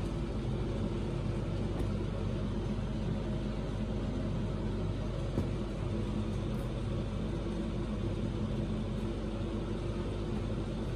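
Steady low hum that does not change, with no speech over it.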